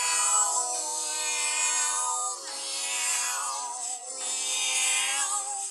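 Music: layered sung vocal harmony holding long chords, changing twice, with no words.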